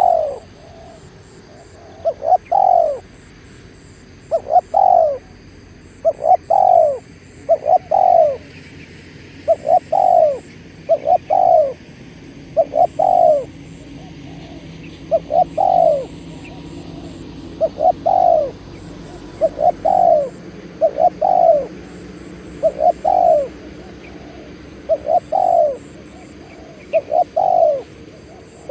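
Spotted dove cooing: a short two- or three-note coo phrase repeated about every two seconds.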